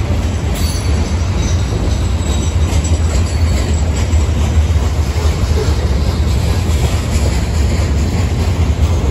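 Freight train of coal hopper cars rolling past: a steady rumble of steel wheels on rail, with a brief faint wheel squeal about half a second in.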